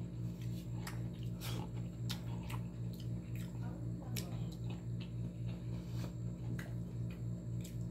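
Eating by hand: chewing, lip smacks and fingers working rice on a plate make short, scattered wet clicks. Under them runs a steady low hum that pulses evenly.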